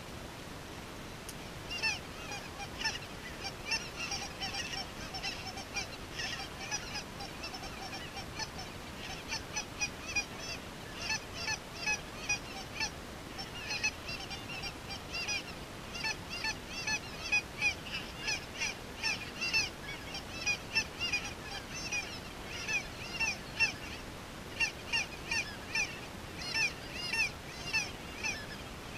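A flock of geese calling: many short, high honks overlapping one another. They start about two seconds in and keep going without a break.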